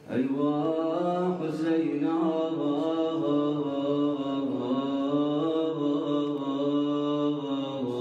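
Male radood, a Shia elegy reciter, singing a Muharram lament in one long unbroken line whose pitch wavers up and down in melismatic turns. The line comes in suddenly after a short lull.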